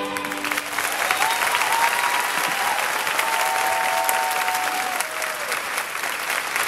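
Audience applauding steadily, many hands clapping, with a few long high calls from the crowd over it between about one and five seconds in.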